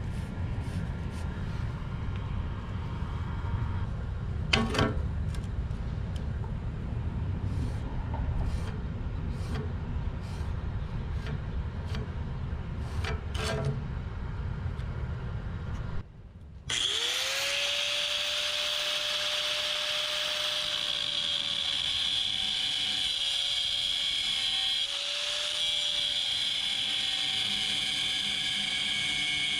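A low rumble with scattered light clicks and a knock about four seconds in. After a sudden break, an angle grinder with a cutoff wheel spins up and cuts steel, giving a steady whine over a bright grinding hiss.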